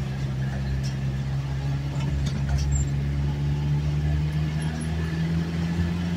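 Engine of a moving vehicle droning steadily, heard from inside the cabin along with road noise. Its pitch rises slightly near the end.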